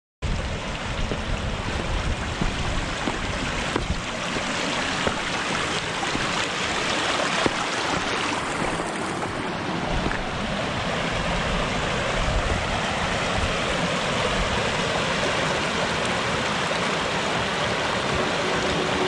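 Shallow, rocky stream running fast over stones and small drops: a steady rush of water.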